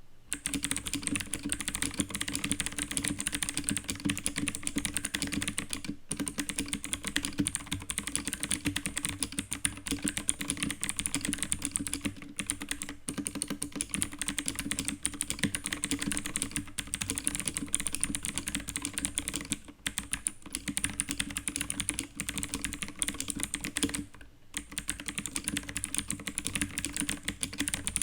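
Fast continuous typing on a budget K550 TKL mechanical keyboard with clicky blue switches, lubed with Krytox 205g0 and foam-filled: a dense stream of sharp key clicks, with a few brief pauses.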